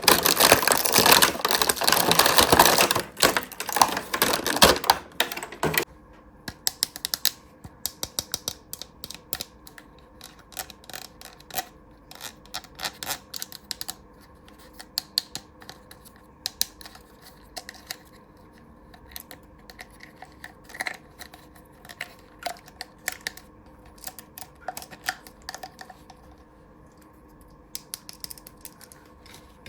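Close-up handling of a plastic toy playset during unboxing. There is dense crinkling of plastic packaging for about six seconds, then scattered light clicks and taps of small plastic pieces.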